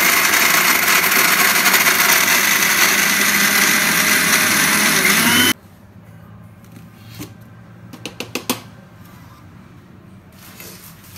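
Electric mixer grinder running at full speed, grinding crisp-fried bread into crumbs in its steel jar with the lid held down by hand. It cuts off suddenly about five and a half seconds in, followed by a few light knocks.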